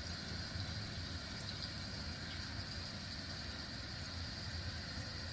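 Fluidmaster 400H Performax toilet fill valve running as the tank refills after a flush: a steady rush of water flowing into the tank.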